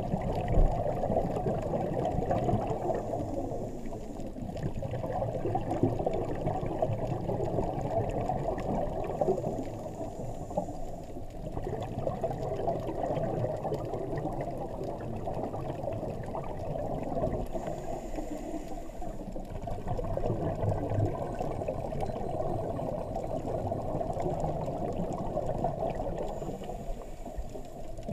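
Muffled underwater bubbling and water rumble heard through an action camera's waterproof housing, from scuba divers' exhaled regulator bubbles. The level swells and sinks slowly every several seconds, following the breathing.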